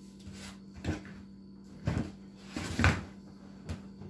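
A few short knocks and bumps of things being handled on a kitchen counter, about four in all, the loudest near three seconds in, over a steady low hum.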